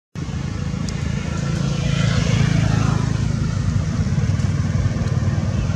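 Steady low engine rumble, like a motor vehicle running nearby, cutting in after a split-second silence.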